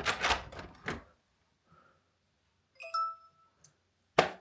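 Aqara U200 smart lock giving a short electronic beep about three seconds in, followed by a faint tick and then a sharp click near the end, while the lock is not locking.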